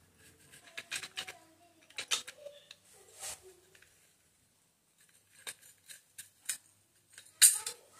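Motorcycle clutch plates (steel and friction plates) shifting and clinking against each other and the clutch housing as they are nudged into alignment by hand: scattered light metallic clicks, a short pause around the middle, and a sharper click near the end.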